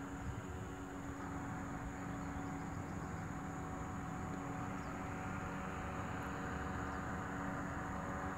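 Powered parachute's engine and propeller running steadily in flight, a continuous hum that grows slightly louder after about two seconds.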